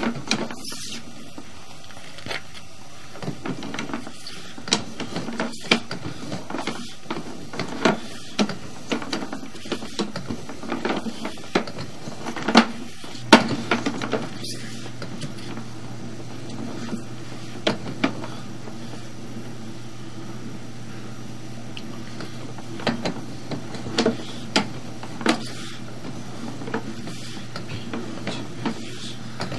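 Sewer inspection camera on its push cable being fed down a sewer line: irregular clicks and knocks as the cable and camera head move through the pipe. A steady low hum joins about halfway through.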